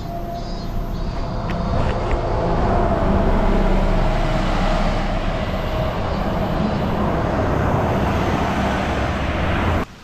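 Road traffic passing on the road alongside: a steady rush of engine and tyre noise that builds over the first few seconds, holds, and cuts off suddenly near the end.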